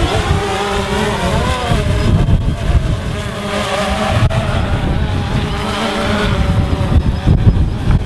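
DJI Phantom 2 quadcopter hovering, its four electric motors and propellers making a steady whine that keeps wavering up and down in pitch as it holds position in strong gusts. Strong wind buffets the microphone with a heavy, uneven rumble underneath.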